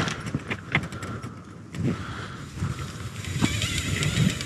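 Footsteps walking downhill on a dirt trail strewn with dry leaves, uneven steps with a few sharper clicks.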